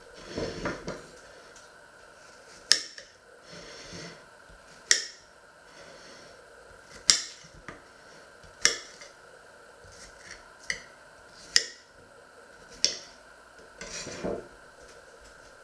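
A knife clinking against a ceramic plate: about seven sharp, ringing clicks spaced one to two seconds apart, with a short spell of handling noise at the start and again near the end.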